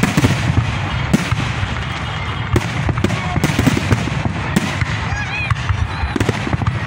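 Fireworks display: shells bursting in sharp bangs about once a second, over a continuous crackle and low rumble.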